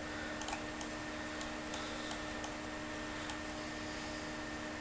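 Computer mouse button clicking: about eight short, sharp clicks at irregular intervals, one a quick double, over a steady electrical hum.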